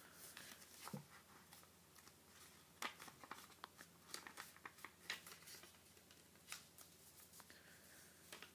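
Faint rustling and crackling of a sheet of paper being folded and creased by hand, with scattered short crisp clicks as the folds are pressed down.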